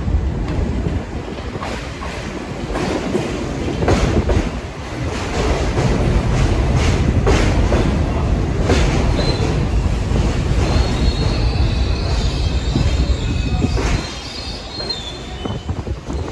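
New York City subway train running on the track: a steady low rumble with repeated sharp clicks of wheels crossing rail joints. About eleven seconds in, a high wheel squeal joins for a few seconds, then the sound drops back quieter near the end.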